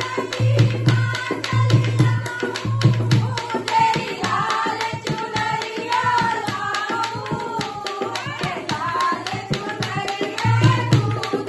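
Dholak playing a fast, steady bhajan rhythm under a wavering melody line, in an instrumental passage between sung verses. The deep bass strokes of the drum drop out for a stretch in the middle and come back near the end.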